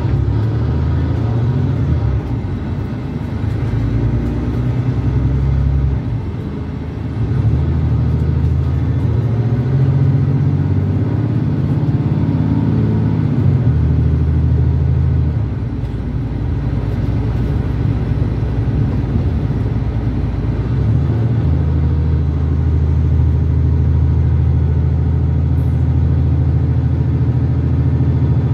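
Engine of a Mercedes-Benz Citaro C2 G articulated bus with a Voith automatic gearbox running under way. The engine note rises and falls several times as the bus accelerates and eases off.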